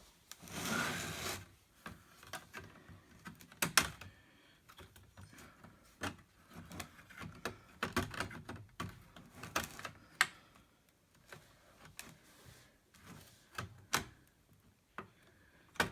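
Irregular small plastic clicks and taps, with a short scrape near the start, as fingers work a stubborn connector plug loose from a laptop motherboard.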